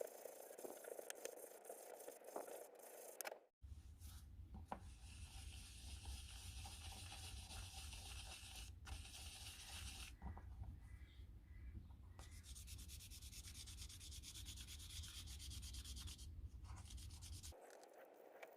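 Sanding a wood and glow-in-the-dark resin pendant: a steady hiss of abrasive rubbing that pauses twice, over a low hum.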